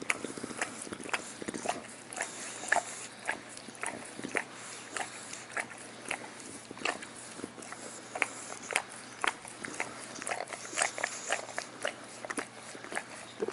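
English bulldog's mouth making quick wet smacking clicks, irregular at about two or three a second.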